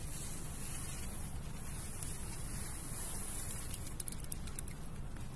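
Steady outdoor background noise: a low rumble with a high hiss over it, and a few faint clicks about four seconds in.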